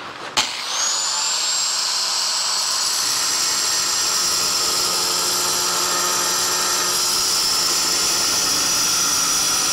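Angle grinder with a diamond tile-cutting wheel clicks on, spins up to a steady high whine within about a second, and runs on as it rough-cuts an opening through tile.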